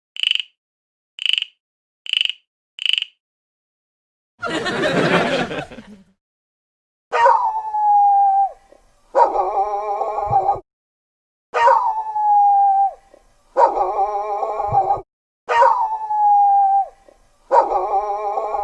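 Sound-effect clips played one after another: four short high beeps, a burst of noise, then an animal cry sound effect looped three times, each time a falling whine followed by a longer, rich-toned call.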